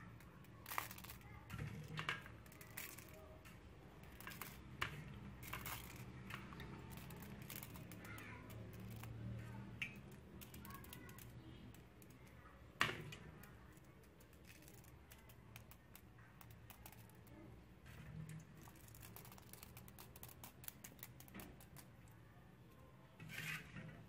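Faint, irregular clicks and ticks over a low hum, with one sharper click about halfway through.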